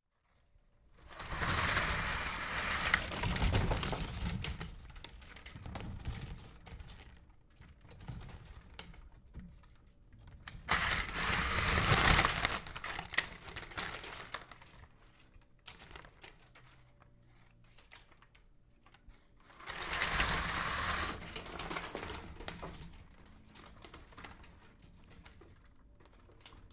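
Window blinds being pulled up three times. Each pull is a burst of clattering rattle lasting a few seconds that trails off into lighter, scattered clicks.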